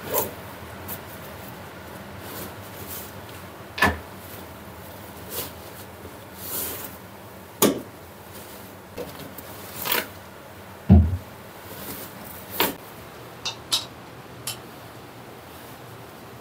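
Intermittent knocks, clicks and rustles of objects being handled, with a heavier low thump about eleven seconds in and a few quick light clicks soon after.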